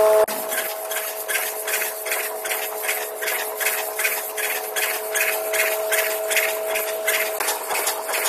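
Automatic multihead-weigher packing machine running with chocolate beans: evenly repeating rattling, hissing bursts about three a second over a steady machine hum. The recording is sped up five times, so the cycle runs faster than the real 30 packets a minute.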